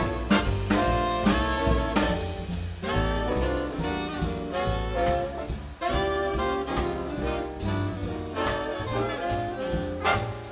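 Jazz big band playing a swing-style chart: saxophone, trumpet and trombone sections in ensemble over upright bass, piano and drums, with repeated drum and cymbal accents.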